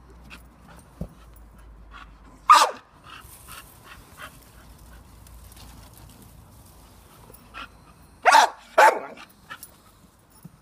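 A Staffordshire Bull Terrier barking: one loud bark about two and a half seconds in, then two more in quick succession near the end, with smaller short noises in between.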